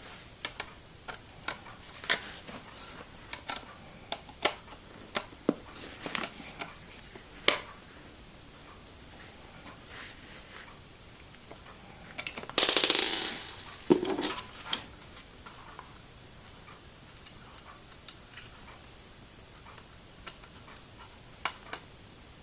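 Clicks, taps and knocks of a drive adapter and its screws being handled and fitted into a desktop computer's 5.25-inch drive bay. A louder scraping rasp about twelve seconds in ends in a duller knock, followed later by two more clicks.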